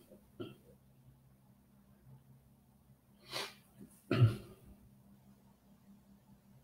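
A man's short, sharp breath, then a moment later a short throaty vocal burst, over faint steady room hum.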